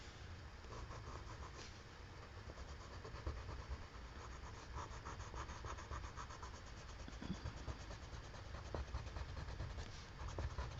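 Coloured pencil scratching on paper in quick, even back-and-forth strokes, faint.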